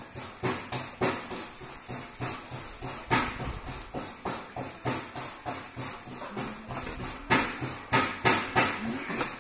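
Knife working on a big fish: a fast, uneven run of short scraping strokes, about three a second.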